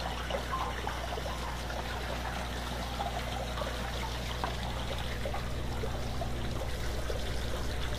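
Wash water trickling and splashing from the water bar's drip tubes onto the deck of a gold concentrating table, over a steady low hum of machinery.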